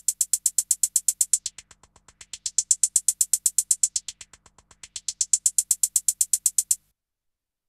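A drum sample machine-gunned by the Maschine+ note repeat at about eight hits a second. A low-pass filter is swept down and back up twice, so the hits go dull and then bright again. The repeat stops abruptly near the end.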